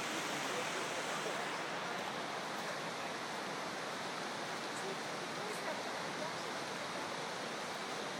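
Steady rushing of flowing water from a canyon creek, an even hiss with no breaks.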